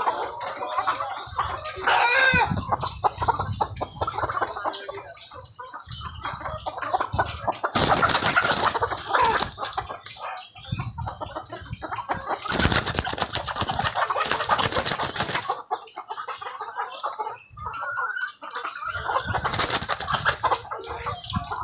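A large flock of caged layer hens clucking and cackling over one another. Three spells of loud rustling noise rise over the calls.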